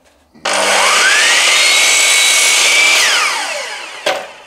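Sliding miter saw motor switched on: it winds up to speed with a rising whine, runs steadily for about two seconds, then is switched off and winds down with falling pitch. A short knock comes near the end.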